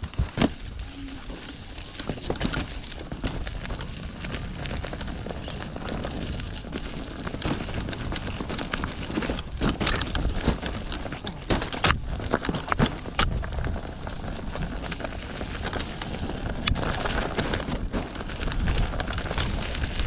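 Wind buffeting the microphone and a mountain bike rattling and clattering over rough, potholed ground on a fast descent. Sharp knocks from the bike hitting bumps come thickest about halfway through and again near the end.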